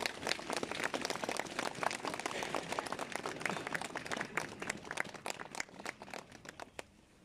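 Crowd applauding, many hands clapping together, thinning out and dying away near the end.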